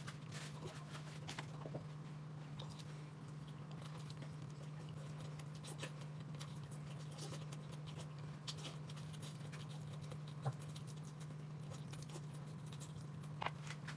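Quiet room with a steady low hum and faint, scattered light taps and rustles, with one sharper click about ten and a half seconds in.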